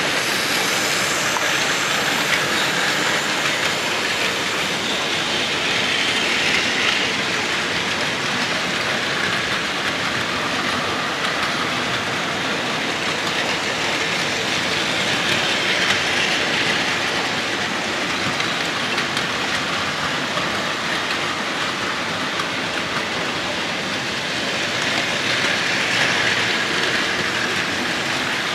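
Several Plarail battery-powered toy trains running on blue plastic track: a steady whirr and rattle of their small motors, gears and wheels, swelling three times as a train passes close.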